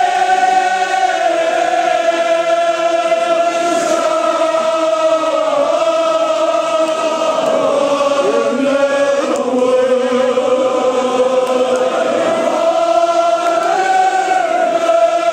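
Many men's voices chanting a Kashmiri marsiya (Shia elegy) together in long, drawn-out held notes. The pitch sinks slowly through the middle and rises again near the end.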